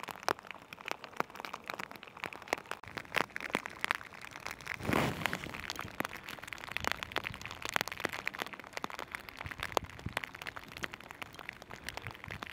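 Heavy rain, with drops ticking sharply and irregularly close to the microphone over a steady hiss. A brief gust of wind rushes about five seconds in.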